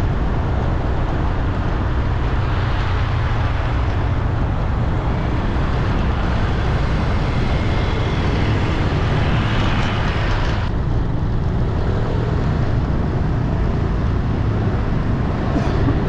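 Steady city road traffic noise with a heavy low rumble. The higher hiss drops away abruptly about ten and a half seconds in.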